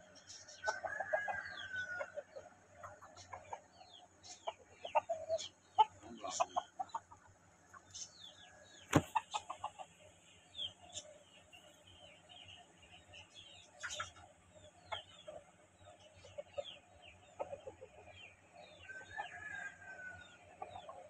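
Aseel chickens clucking and calling, with a short falling call about a second in and again near the end, over many brief high chirps. A single sharp knock about nine seconds in is the loudest sound.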